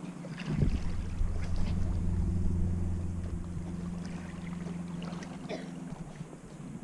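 Taut braided fishing line humming in the wind, the line's 'piano' sound: a steady low tone with overtones that swells in about half a second in and fades after a few seconds.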